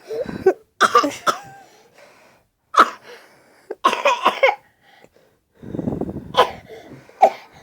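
A three-year-old child's deliberately fake coughs: a string of short, forced coughs at uneven intervals, put on to seem sick.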